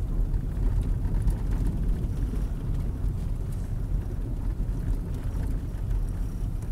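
Steady low rumble of a car in motion, heard from inside the cabin: engine and tyre noise.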